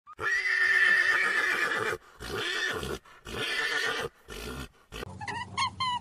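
An animal calling four times, each call shorter and fainter than the one before. About five seconds in, a bird starts chirping quickly over a low steady hum.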